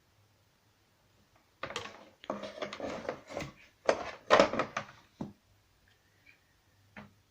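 Plastic tool box and packaging being handled: a few seconds of irregular rustling and knocking with some sharp knocks, then a single click near the end.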